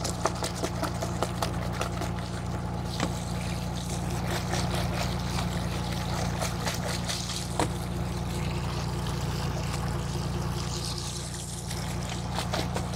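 Water splashing and sloshing as a plastic basket of cut fish pieces is dipped and shaken in seawater to rinse them, with scattered knocks, over the steady low hum of the fishing boat's engine.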